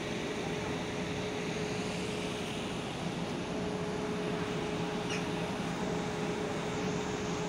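Passenger train of České dráhy coaches rolling past a station platform: a steady rumble with a constant hum.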